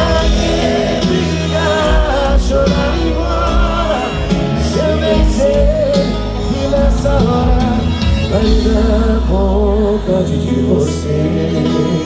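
Live sertanejo duo and band playing, with sung vocals wavering over a steady bass, heard from among the audience through the stage PA.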